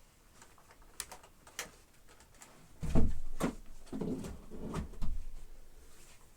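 Hard plastic clicks, then a heavy thump about three seconds in, followed by more knocks and creaking as a Dyson upright vacuum cleaner is handled and set down.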